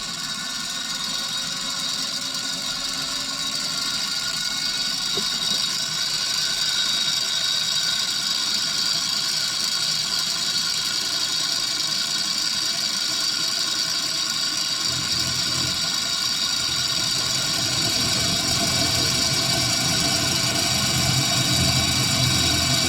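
Milling machine running with an aging end mill cutting flats into a round part: a steady high whine that slowly grows louder, with a deeper hum joining about two thirds of the way through.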